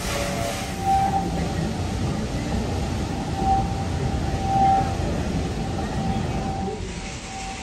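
Narrow-gauge passenger cars rolling past on the rails with a steady rumble, the wheels giving a thin high squeal that comes and goes several times.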